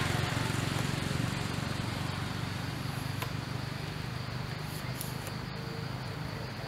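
Low, steady engine hum over an even outdoor hiss, slowly fading.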